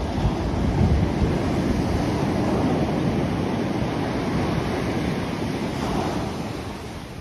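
Large waves breaking and washing up a sandy beach, a loud steady rush of surf. Wind gusts buffet the microphone in the first seconds, and the surf eases off near the end.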